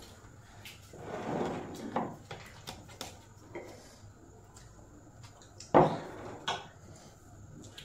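Eating at a table: soft clicks and rustles of hands working rice on ceramic plates, with a sharp plate knock just before six seconds in as the serving plate is picked up, and a smaller knock after it.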